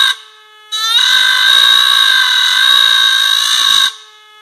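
Handheld electric engraving tool cutting into a metal control panel, giving a loud, high-pitched whine. Just after the start it drops to a quieter, lower hum for under a second, then rises back into the whine; near the end it drops to the hum again.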